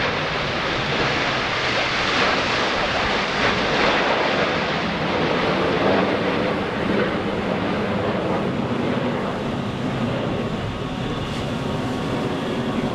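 Jet engine noise from a formation of nine CT-114 Tutor jets, each with a single small turbojet, passing overhead: a steady rushing sound that is loudest between about two and six seconds in, then eases slightly.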